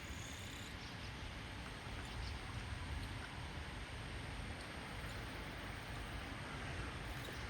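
Steady outdoor background noise with a low rumble, like distant traffic, and a few faint ticks.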